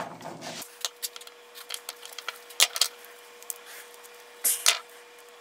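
Light clicks and taps of a screwdriver and a small chainsaw carburetor being handled on a workbench, with two louder knocks about four and a half seconds in.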